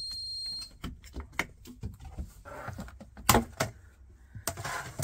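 A single high electronic beep of about a second, then a string of light clicks and knocks with a louder knock about three seconds in and a short rustling rush near the end.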